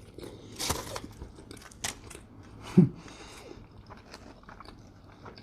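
A person chewing a mouthful of brisket-and-egg taco close to the microphone, with small irregular wet mouth clicks. A brief low hum comes a little under three seconds in.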